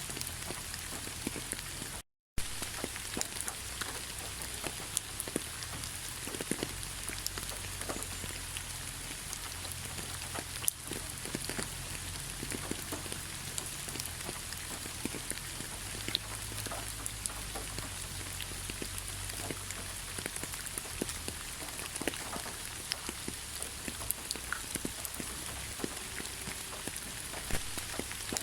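Heavy rain falling steadily: a dense, even hiss with scattered individual drop taps. The sound cuts out completely for a fraction of a second about two seconds in.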